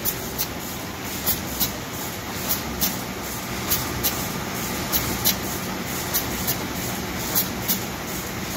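Moll Flexcut inline die-cutting and stripping machine running steadily, with sharp clicks in pairs about a third of a second apart, repeating about every 1.2 seconds as the machine cycles.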